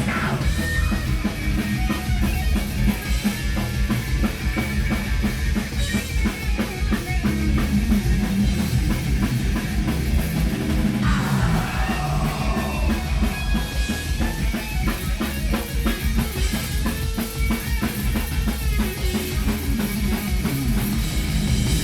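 A metal band playing live at full volume: distorted guitars and bass over rapid, dense drumming with a pounding bass drum.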